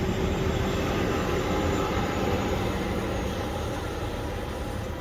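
Steady vehicle rumble from road traffic going by, easing off slowly toward the end.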